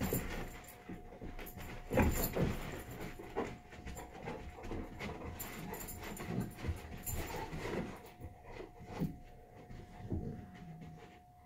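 Two Labrador retrievers play-wrestling: panting and scuffling in irregular bursts, loudest about two seconds in.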